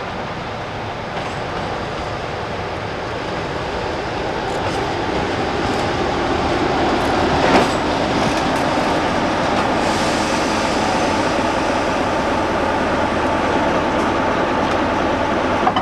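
British Rail Class 47 diesel locomotive running slowly, its twelve-cylinder Sulzer engine growing louder over a few seconds as it draws near, with one sharp clank about seven and a half seconds in.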